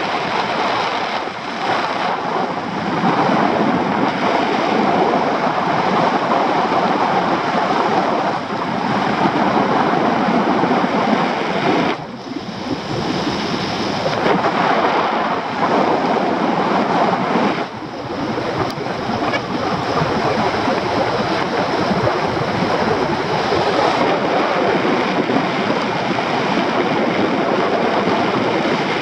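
Airflow rushing over the microphone of a camera carried by a paraglider pilot in flight: a loud, steady rush that dips briefly twice.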